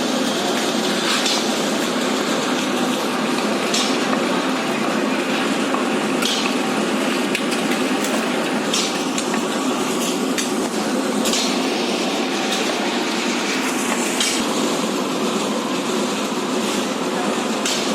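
Manual building-site work: a steady, loud din with sharp knocks and clinks of tools and materials at irregular intervals, about every one to three seconds.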